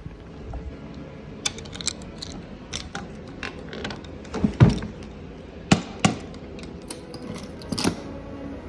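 Irregular clicks and knocks, like objects being handled and set down, over a faint steady hum, with a heavier thud about halfway through.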